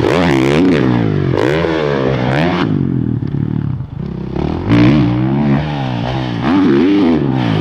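Motocross dirt bike engine revving, its pitch rising and falling quickly with repeated throttle blips. It eases off briefly around three to four seconds in, then revs hard again.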